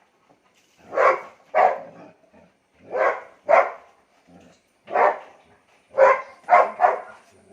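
A dog barking about eight times, in short groups of two or three with a pause between groups.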